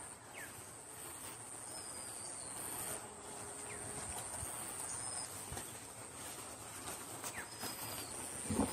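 A steady high-pitched insect drone, with short sliding bird calls every second or two. A few low knocks near the end.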